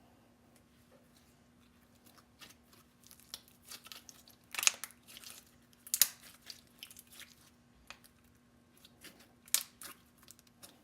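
Thick slime being squeezed and stretched by hand, making scattered sticky clicks and pops, with a few louder pops in the middle and near the end.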